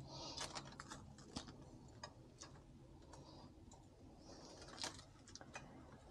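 Faint crinkles and scattered light clicks of plastic wrap being pressed and smoothed over a glass baking dish.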